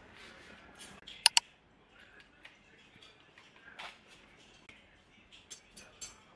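Plastic lunch-box cutlery case snapping open with two sharp clicks about a second in. Light clicks and plastic rustling follow as a metal spoon and fork are handled and lifted out.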